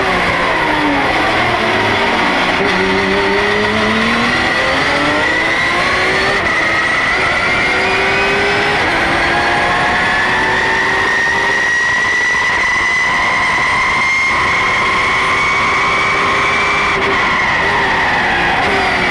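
Porsche GT3 Cup race car's flat-six engine heard from inside the cabin at full race pace: the pitch drops in the first second or so, climbs steadily through most of the stretch as the car accelerates, then falls again near the end as it comes off the throttle.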